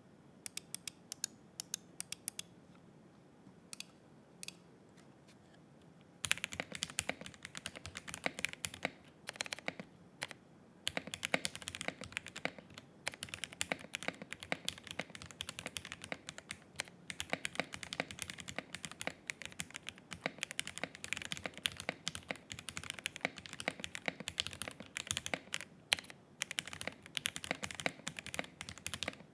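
Mechanical keyboard with lubed Gateron Milky Yellow linear switches and CRP keycaps being typed on: a few scattered keystrokes at first, then fast continuous typing from about six seconds in, with a couple of brief pauses.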